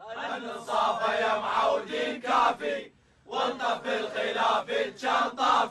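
A group of young men chanting a song in unison in Iraqi Arabic, in short rhythmic phrases. It starts suddenly and breaks for a moment about three seconds in.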